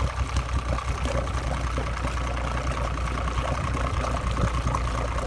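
Evinrude E-TEC 75 hp two-stroke outboard motor idling steadily just after a cold start, a low even engine note with a steady high tone over it.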